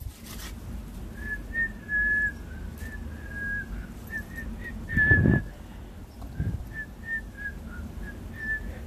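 A person whistling a string of short, high notes that stay close to one pitch, some held a little longer than others. About five seconds in there is a brief, louder low thump.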